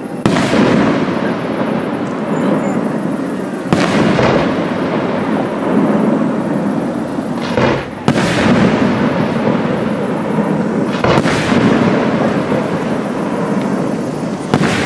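Aerial firework shells bursting: about five heavy bangs three to four seconds apart, each trailing off in a long rumbling echo.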